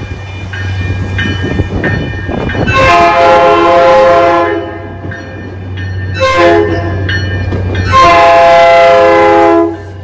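Air horn of an approaching MBTA commuter train sounding a long blast, a short blast, then a long blast, the closing part of the grade-crossing signal, over the steady rumble of the train on the rails.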